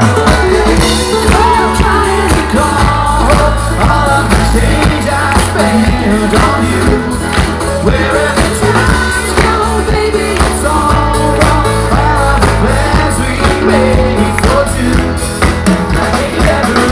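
Live ukuleles and acoustic guitar with a choir and lead voices singing a pop song, over a steady beat through a stage PA.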